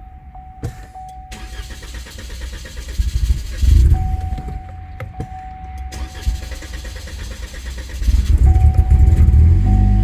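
2013 Cadillac ATS's 2.0-litre turbocharged four-cylinder cranking with a fast rhythmic whirr, surging briefly about four seconds in, then catching and running from about eight seconds in. The engine is hard to start and misfires, which the mechanic puts down to a high-pressure fuel pump that can't build rail pressure.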